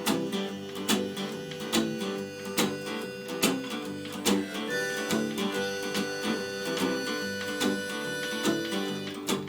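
Live acoustic band playing an instrumental break, led by strummed guitar, with a steady beat.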